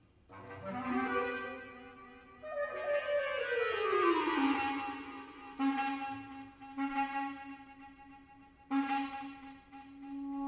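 Bass clarinet playing with live electronics: it swells into a note, then makes a long downward glide in pitch and settles on a held low note, which is re-attacked twice.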